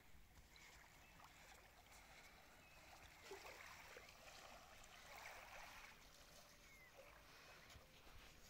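Near silence: faint ambience of calm lake water washing lightly at a sandy shore, with a few soft scattered rustles.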